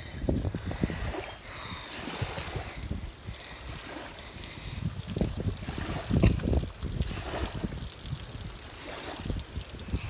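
Water trickling and dripping, under an uneven low rumble of wind buffeting the microphone that swells strongest about six seconds in.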